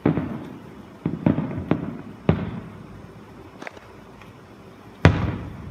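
Distant aerial firework shells bursting: a series of sudden booms, each trailing off in an echo. There are several in the first two and a half seconds, a fainter one near four seconds, and the loudest about five seconds in.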